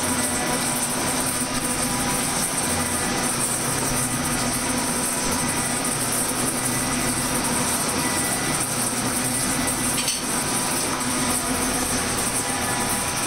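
Smith & Mills metal shaper running while machining an aluminium workpiece, a steady mechanical hum with a hiss over it.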